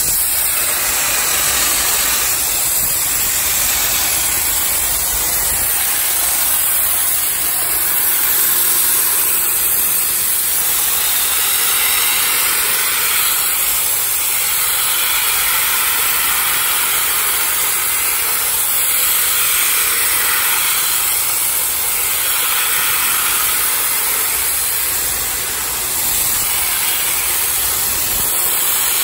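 Flame-spray metalizing gun spraying 85/15 zinc-aluminum: a loud, steady hiss of its gas flame and atomizing jet that runs without a break.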